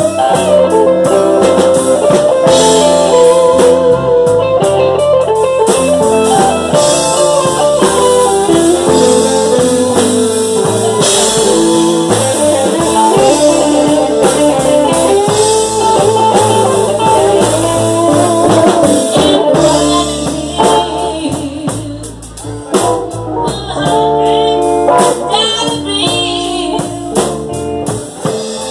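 Live blues band playing, with a semi-hollow electric guitar carrying the lead over the band.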